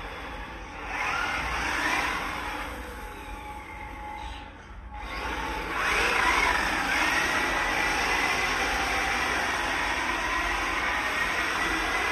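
Radio-controlled drift car running and sliding on a smooth concrete floor: a steady hissing scrub from its tyres with a thin motor whine on top. The sound dips briefly about four and a half seconds in, then grows louder from about six seconds as the car comes closer, with a steady high whine holding over it.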